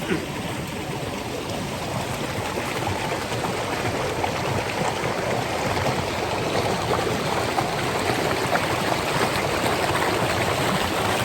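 Steady rush of flowing stream water, getting slowly a little louder.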